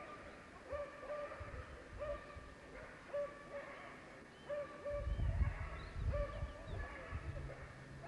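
A dog yelping repeatedly in short, high, pitched yelps, about one a second, with a low rumble over it about five to seven seconds in.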